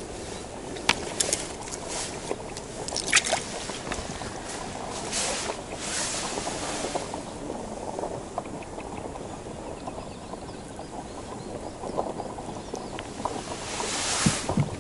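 Handling sounds of a roach being landed through an ice-fishing hole and held in the hand. There are a few sharp clicks and taps in the first few seconds, then rustling twice, the second time near the end.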